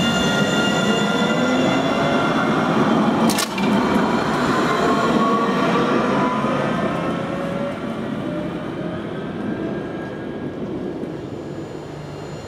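Alstom Citadis electric tram pulling away from the stop, its traction motors whining and rising steadily in pitch as it accelerates, with one sharp click about three and a half seconds in. The sound fades over the last few seconds as the tram leaves.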